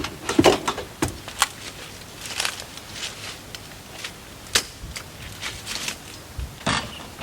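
A series of irregular, sharp clicks and knocks over a faint steady hiss.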